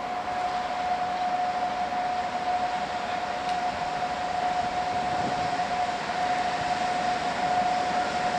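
SŽ class 541 electric locomotive drawing a freight train slowly closer: the hum of its fans and running gear under one steady whine, getting a little louder over the first second or so.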